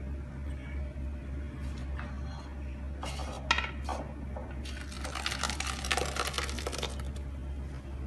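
A glass bowl knocks with a clink against a plastic strainer about three and a half seconds in. Then blended pomegranate pulp is poured from the bowl into the mesh strainer, splashing wetly for about two seconds, over a steady low hum.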